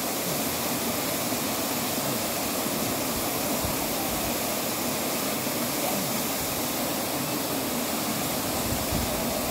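Steady rushing of a waterfall plunging into a pool.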